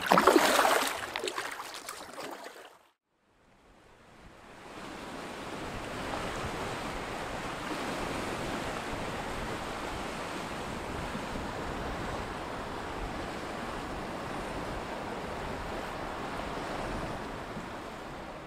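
Steady wash of lake waves on a shore. It fades in after a brief silence about three seconds in and eases off near the end.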